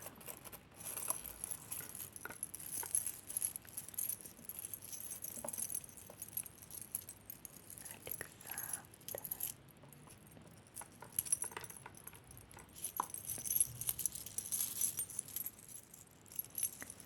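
Metal jewelry jingling and clinking as it is handled, in runs of bright tinkling with short pauses between.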